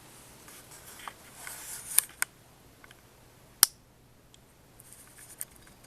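Paintbrush dabbing paint onto a canvas: a brief scratchy brushing and a few sharp small clicks, the loudest about three and a half seconds in.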